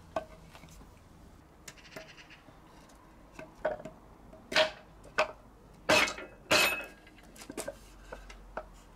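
Hammer blows on a length of timber set in a cylinder bore of an AC 2-litre engine's alloy block, driving out a stuck cylinder liner. About a dozen sharp knocks, irregularly spaced, each with a brief metallic ring. The heaviest blows come a little past the middle.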